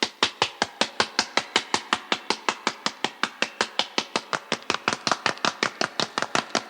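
Dragon Ball Z anime sound effect of running footsteps: quick, even, crisp steps at about six a second.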